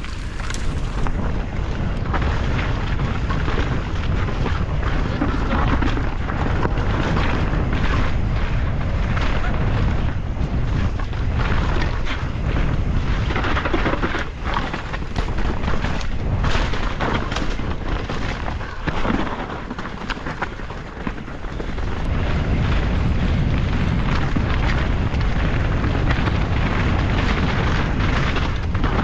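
Enduro mountain bike racing down a rough dirt trail: wind rushing over the camera microphone and tyres rumbling over roots and rocks, with constant clattering knocks from the bike. The rush eases briefly about two-thirds of the way through.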